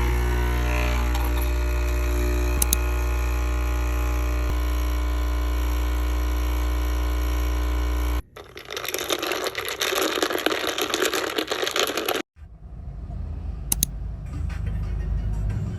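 Home coffee machine's pump humming steadily for about eight seconds, then stopping abruptly. A few seconds of rushing, hissing noise follow, then a quieter low rumble.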